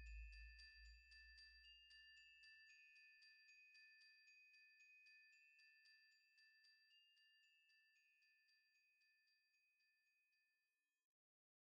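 Near silence, with a very faint chime-like tune of quick repeated notes, like a glockenspiel, that stops abruptly about 11 seconds in.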